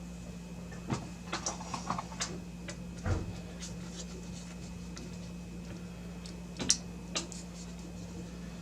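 Scattered clicks and light plastic taps of power cable connectors being handled and plugged into GPU riser cards, over a steady low hum.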